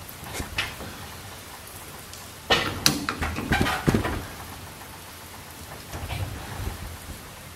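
Clanks, knocks and rattles of metal hardware as a bolt is pushed through an engine mount and the hoist-hung engine is shoved into line. There are a few light clicks early, a loud cluster of knocks lasting over a second about two and a half seconds in, and a duller thud around six seconds.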